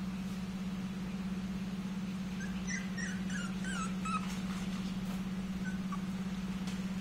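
Whippet puppy whimpering: a quick run of short, high, wavering squeaks a few seconds in, then a couple of fainter ones, over a steady low hum.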